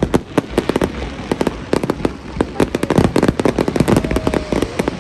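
Fireworks display: a rapid, irregular barrage of bangs and crackling bursts, many per second.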